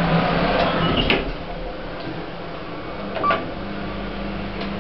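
Passenger lift in use: a steady low hum with a sharp click about a second in and another click with a brief tone a little after three seconds.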